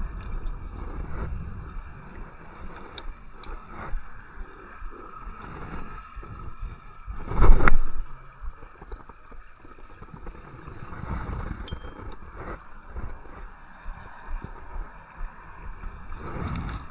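Wind buffeting the microphone over small waves lapping on a rocky shoreline, with one strong gust about seven and a half seconds in.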